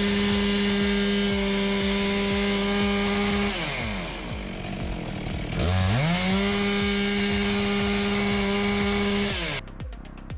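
Two-stroke chainsaw held at full throttle with a steady high whine. About halfway through the revs drop off and then climb back up, and near the end they fall away and the saw stops. Faint music with a steady beat plays underneath.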